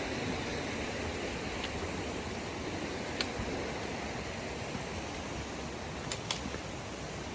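Steady rush of a creek running over cascades, easing slightly, with a few short sharp clicks about three seconds in and twice a little after six seconds.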